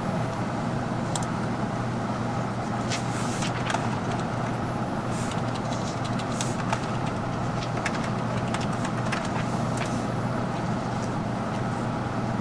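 Steady low machine hum with a scattered series of light clicks and taps, typical of keys and a laptop being worked.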